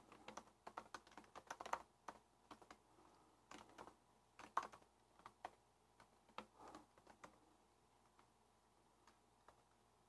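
Computer keyboard typing: faint, irregular runs of keystrokes as code is entered, thinning to a few single key presses near the end.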